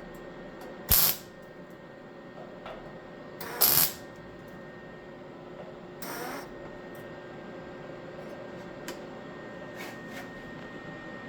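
Welder making short tack welds: three brief noisy bursts about a second, three and a half and six seconds in, the last one weaker, over a steady workshop hum.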